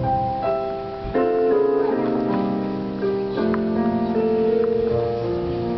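Keyboard playing slow, held chords that change every second or so, some notes wavering.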